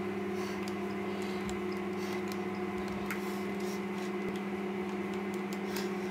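A steady electrical-sounding hum with a low tone and several higher ones, and a few faint clicks from a small handheld object being handled.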